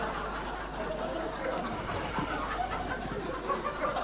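Studio audience laughing after a punchline, the laughter thinning into scattered chuckles and murmurs.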